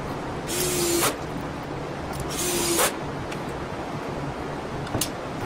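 A DeWalt cordless drill running in two short bursts about two seconds apart, each with a steady motor whine. A sharp click comes near the end.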